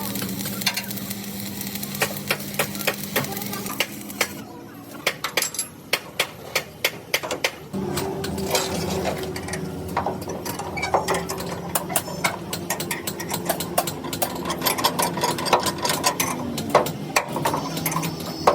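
Metalworking clatter: rapid metallic taps and clinks over the steady hum of a running motor. The hum stops about four seconds in and starts again near the eight-second mark.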